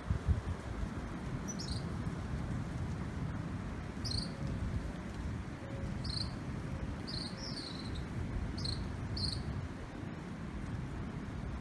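Seaside ambience: a steady low rumble of wind, with short high-pitched chirps coming roughly once a second.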